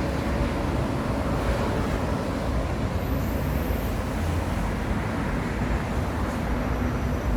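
Steady city road traffic noise: cars and other vehicles running along a busy street, with no single event standing out.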